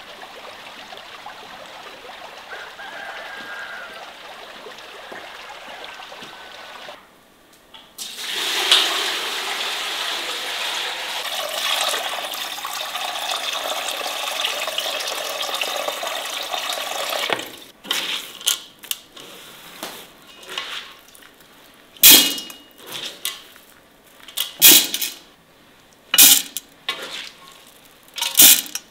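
Water pouring for about nine seconds from a tilted metal basin at a white enamel bucket. It is followed by a run of separate sharp clatters and splashes as wheat grains are tipped into an enamel pot.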